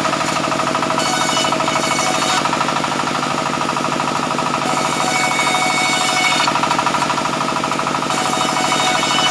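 Sawmill saw running on a steady, fast-pulsing engine drive while it cuts mahogany. A hissier cutting sound comes and goes several times as the blade works through the wood.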